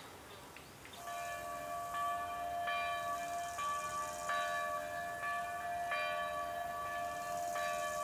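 Church bells ringing, starting about a second in, struck roughly every second, with each stroke ringing on into the next at several pitches.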